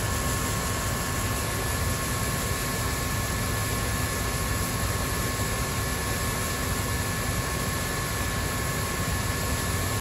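Combine and Case IH tractor running steadily, with two steady whining tones on top, while the combine's unloading auger pours shelled corn into the grain cart.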